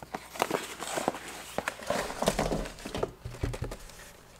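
Cardboard shipping box being opened and handled: a run of scattered cardboard rustles, scrapes and light knocks.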